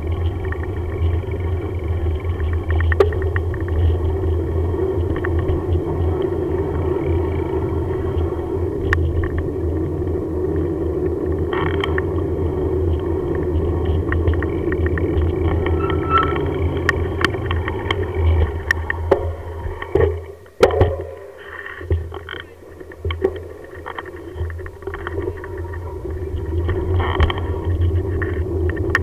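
Bicycle rolling along on tarmac: a steady rumble of tyres and frame vibration with scattered clicks and rattles. It drops away briefly about two-thirds of the way through, then picks up again.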